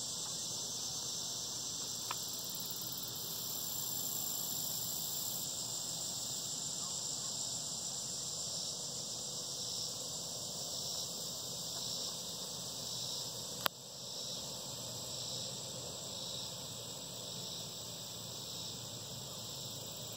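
Steady, high-pitched chorus of insects such as crickets, with one sharp click about fourteen seconds in.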